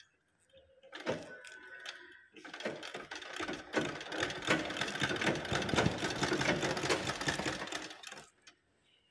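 Flatbed sewing machine stitching a leather sandal strap: a short run of rapid needle strokes about a second in, then a longer steady run that stops shortly before the end.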